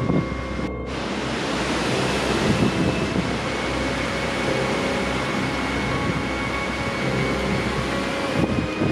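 Strong gale-force wind rushing steadily, hitting the microphone, as a cold front's gusts blow through.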